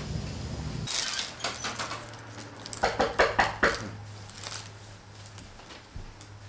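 Handling noise: a quick run of sharp crinkles and clicks from something small worked in the hands, thickest about two to three and a half seconds in, then fading to a steady low room hum.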